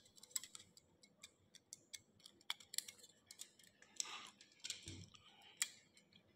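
Faint handling noise: scattered light clicks and ticks, with a brief rustle about four seconds in, from a thin aluminum soda-can sheet canard and a small plastic fuselage module being picked up and handled.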